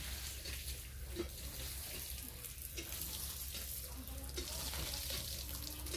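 Water gushing from a hand pump's spout and splashing onto a concrete platform as the pump handle is worked, a steady rushing splash.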